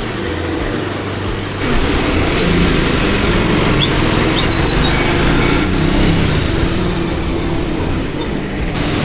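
Riding a Triumph Scrambler 400X through traffic: a steady rush of wind and road noise on the helmet microphone, with the motorcycle's engine running underneath. It grows louder about one and a half seconds in.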